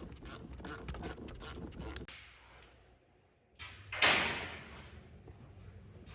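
A socket ratchet clicking in quick short strokes for about two seconds as it tightens a hose clamp. About four seconds in there is one louder knock with a short fading rattle.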